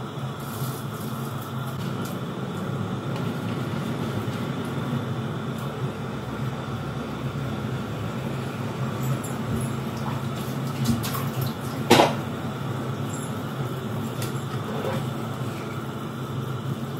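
Spiced water boiling hard in a stainless steel pot on a gas burner, a steady bubbling hiss, as soaked rice is tipped in. About twelve seconds in, a single sharp knock as a steel ladle goes into the pot to stir.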